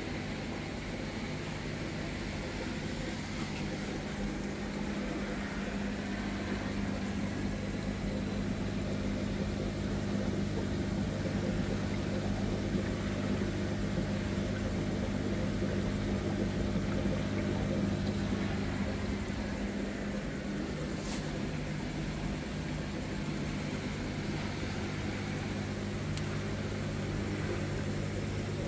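Aquarium aeration running: a steady electric hum from the air pump and filter under a constant fizz of air bubbles rising through the tank water.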